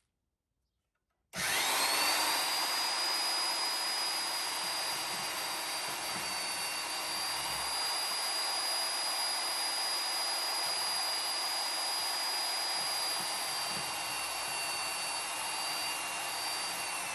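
Milwaukee portable band saw starting up about a second in and cutting through a steel backhoe mounting hook: a steady cutting noise with a high whine that rises briefly as the saw comes up to speed.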